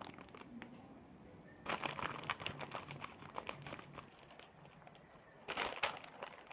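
Plastic instant-noodle packet crinkling as it is handled. There is a spell of crackly rustling from about two seconds in lasting over a second, scattered crinkles after it, and a shorter burst near the end.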